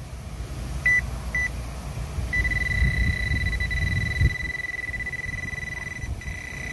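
Handheld metal-detecting pinpointer sounding off while probed into mulch: two short high beeps, then a steady continuous tone from about two seconds in, the signal that its tip is right on a buried metal target.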